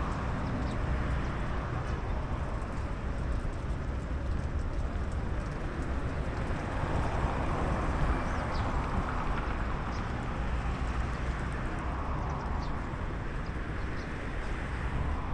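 Steady street noise of vehicle engines and traffic, with a few faint short high chirps now and then.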